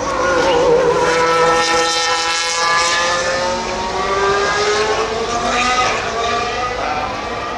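A Formula One car's turbocharged V6 passing at speed, its engine note sliding down in pitch over a few seconds as it goes by.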